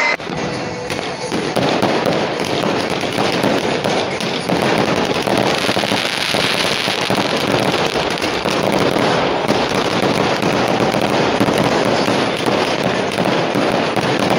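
Many fireworks going off in dense succession: a continuous crackle of pops and bangs with no break.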